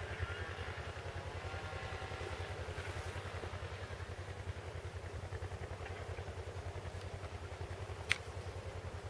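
Distant diesel engine of an SM42 diesel-electric shunting locomotive running as it approaches, heard as a steady low, rapidly pulsing throb. A single sharp click about eight seconds in.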